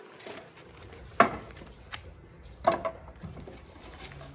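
Dry firewood logs and branches knocking against each other as they are pulled from a woodpile: two loud wooden clunks about a second and a half apart, with lighter knocks between and after.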